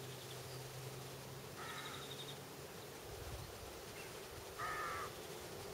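A crow caws twice, once about one and a half seconds in and again, louder, near the end, over the faint steady ripple of a spring-fed stream.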